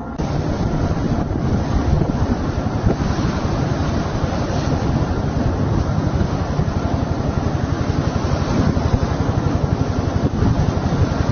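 Wind buffeting the microphone on a boat at sea, a loud, steady rushing rumble with waves and boat noise mixed in.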